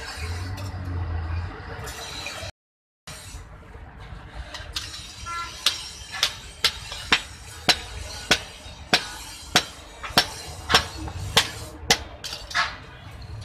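Blacksmith's hammers beating a red-hot steel chopper blade on an anvil: sharp metallic blows about twice a second, starting a few seconds in and keeping on steadily.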